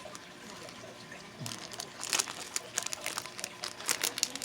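Crinkling and crackling of plastic jewelry packaging being handled. It is faint for about the first second and a half, then turns into a quick run of sharp crackles and clicks.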